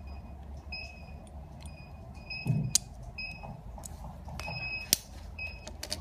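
Short high electronic beeps repeating at irregular intervals, with a few sharp plastic clicks as a fusion splicer's fibre holder is handled and unclipped; the loudest click comes about five seconds in.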